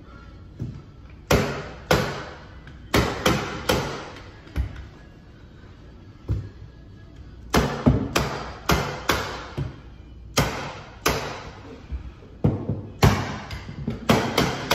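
Staple gun firing into stair carpet at the back of the treads: sharp, irregular shots, some single and some in quick runs of several, with background music underneath.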